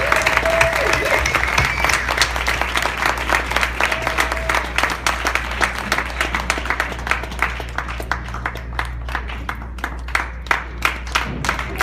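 Audience applauding, dense at first, then thinning out to scattered individual claps over the last few seconds.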